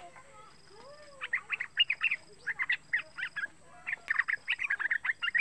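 Young yellow-vented bulbul (trucukan) calling in quick bursts of short, bright chirping notes. The bursts start about a second in and break off and resume three or four times.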